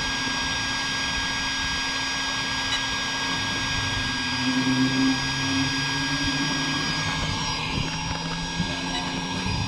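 Castle 1717 1650kv brushless motor and ESC of an 8S X-Maxx RC truck under light throttle: a steady high electric whine and hum throughout. About halfway through, a lower motor tone comes in and steps up and down as the truck pulls away smoothly at low speed.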